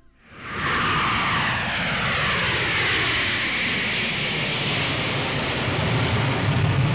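Hawaiian Airlines Airbus A330 jet airliner flying low overhead on approach with its landing gear down. Its engine noise is steady, with a whine that falls in pitch as it passes and a low rumble that builds toward the end.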